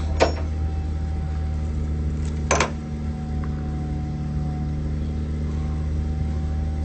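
Factory machinery running with a steady low hum and a thin steady whine, with two sharp knocks, one just after the start and another about two and a half seconds in.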